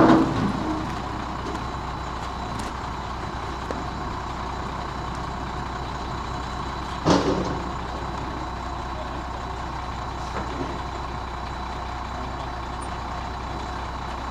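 Motorhome's diesel engine idling steadily, with two short, louder sounds: one at the very start and one about seven seconds in.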